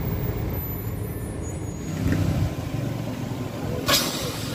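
Steady road and traffic rumble of a car driving along, heard from inside the cabin with the side window open. One short sharp click near the end.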